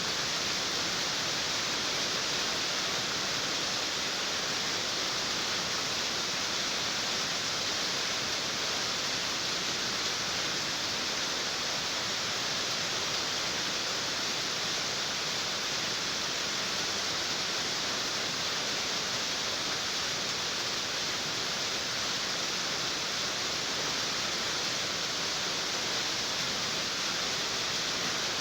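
Steady, heavy rain on a tin roof, heard as one constant dense hiss with no single drops standing out.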